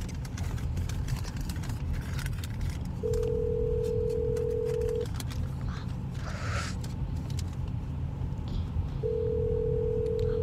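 Telephone ringback tone of an outgoing call ringing unanswered: a steady two-second tone that comes twice, about three seconds in and again about nine seconds in, with a four-second gap between. Under it runs the steady low rumble of the car's cabin.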